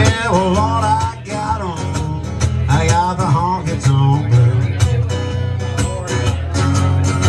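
Live country music: an acoustic guitar strummed in a steady rhythm under a man's singing voice, which slides and bends through sustained notes.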